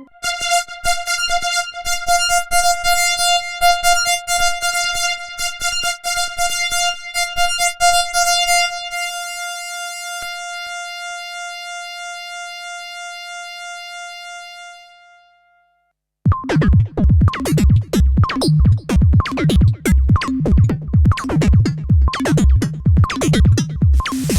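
ASM Hydrasynth synthesizer playing preset sounds. A held high tone with bright overtones has a fast clicking rhythm over it; the clicks stop after about nine seconds and the tone fades out. After a brief silence, a new patch starts as a busy rhythmic sequence with a deep, pulsing bass.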